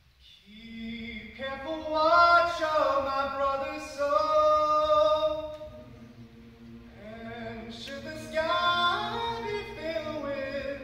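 Mixed youth choir singing held chords in several parts, swelling and fading in phrases. There is a softer stretch about six seconds in before the voices build again.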